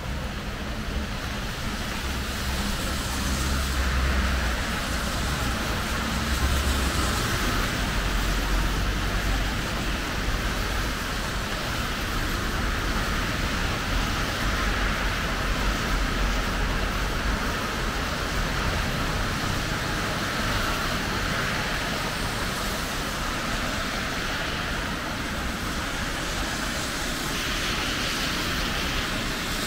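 Heavy rain falling in a steady hiss, with road traffic in it: a deep engine rumble is strongest in the first several seconds.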